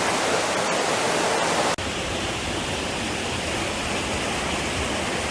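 Steady rushing of a small waterfall, an even wash of water noise. About two seconds in it cuts off abruptly and gives way to a softer, duller rush of water.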